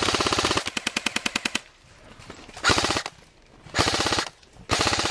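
Airsoft electric guns firing on full auto, about ten shots a second. A long burst at the start is followed by three shorter bursts with short pauses between them.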